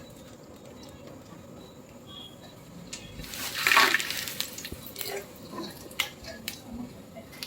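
Water pouring and splashing, loudest for about a second near the middle, with a few sharp knocks.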